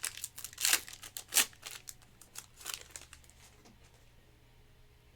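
Crinkling and rustling of plastic wrappers and card sleeves as trading cards are handled, in a quick run of short rustles over the first three seconds, then quiet.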